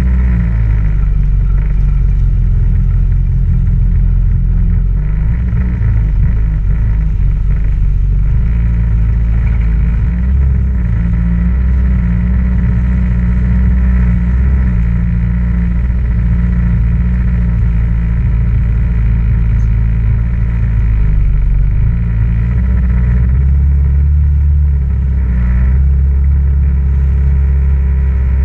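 Yamaha WaveRunner personal watercraft engine, heard from on board, running steadily at cruising speed with no big changes in pitch.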